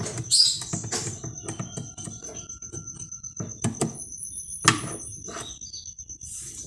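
Irregular knocks and clicks from tools and parts being handled on a washing machine, with sharp strikes just after the start, about a second in, and twice more near the middle. A thin, steady high tone runs underneath.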